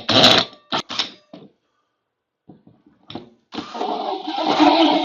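Cordless drill running a 4-inch hole saw into drywall: several short bursts as the pilot bit starts the hole, then a steady cut through the drywall from about three and a half seconds in.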